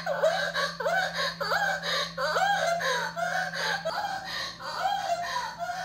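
Tinny playback from the sex toy's small built-in speaker: a rapid, unbroken run of short rising and falling cries, about three a second.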